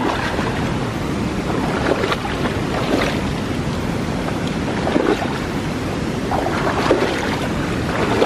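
Muddy water of a shallow stream splashing and churning as someone wades along it to drive fish downstream, with a few louder splashes.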